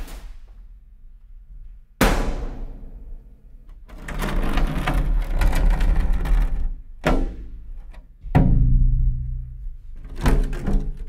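Heavy booming hits, each ringing out and fading, a second or two apart, with quicker repeated hits near the end, mixed with music.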